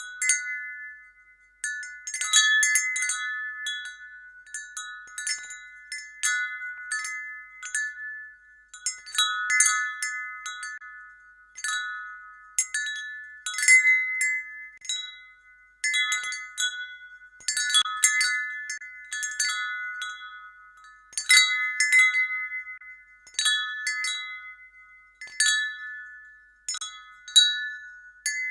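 Wind chimes tinkling: a few fixed ringing notes struck at irregular moments every second or two, overlapping and dying away.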